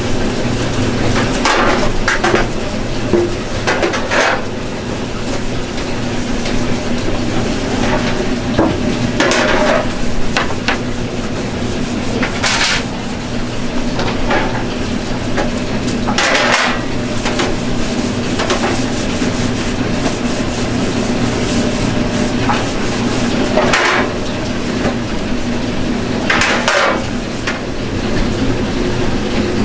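Burger-stall cooking noises: utensils scraping and knocking now and then, about eight short sharp scrapes spread a few seconds apart over a steady low hum.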